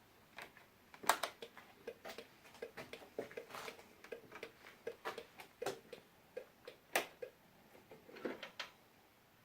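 Rex RS 400 scooter making a string of short, irregular clicks and squeaks while running, the unexplained squeak its owner hears with the engine on.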